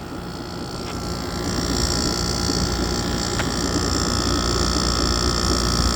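A 2006 Amana air conditioner starting up and running: the fan and compressor noise builds over the first two seconds, then holds steady over a low hum, with a couple of light ticks.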